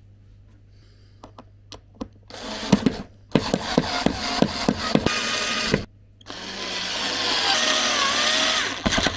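Power drill-driver driving wood screws into a particleboard tabletop in three runs, a short one, then a longer one with clicks, then the longest with a wavering motor whine. The screws are going in harder than the others.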